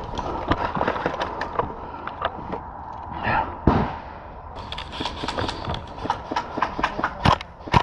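Irregular sharp snaps of airsoft guns firing, single shots coming thick and fast in the second half, with one louder thump a little before the middle.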